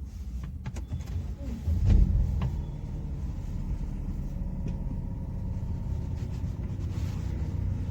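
BMW 320i N46 four-cylinder petrol engine restarted: a few clicks, a short loud surge as it catches about two seconds in, then a steady idle. The idle is rough and vibrating, a misfire the scan later puts down to an internal fault in the Valvetronic servo motor.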